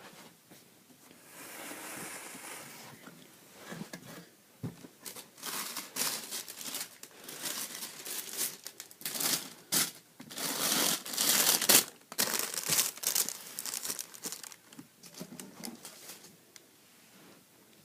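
Crinkling and rustling in irregular bursts from the sneakers and their packaging being handled, loudest about ten to twelve seconds in.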